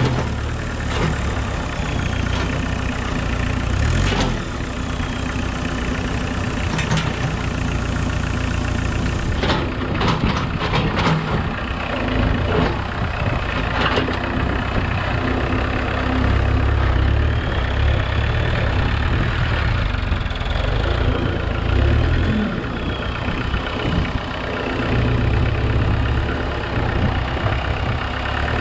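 Homemade 4x4 tractor's engine running steadily while its front loader digs into a pile of soil, with a few sharp clanks and a faint whine that rises and falls several times.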